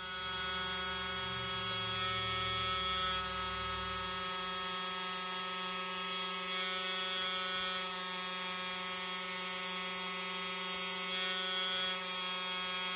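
Small electric motor driving a 3D-printed resin gear pump, running steadily with a whine of many steady tones. A low rumble underneath drops away about four seconds in.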